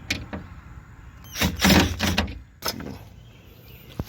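Plastic car door trim panel being fitted back onto the door: sharp plastic clicks and knocks, with a louder scraping handling noise for about a second in the middle and a sharp snap near the end.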